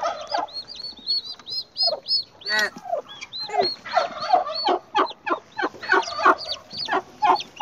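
Domestic turkey poults peeping over and over in short, high, arched chirps. Among them come a turkey hen's short, sharp clucks as she is grabbed and held, a sign that she is agitated.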